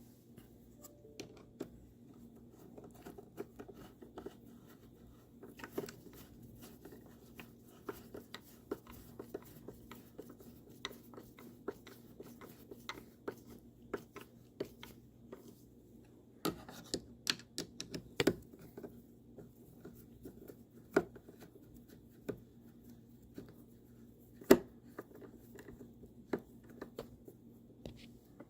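Small, irregular clicks and scratches of a screwdriver turning screws into a steering column's lower case, with sharper clicks around 17–18 seconds and about 24 seconds in, over a faint steady low hum.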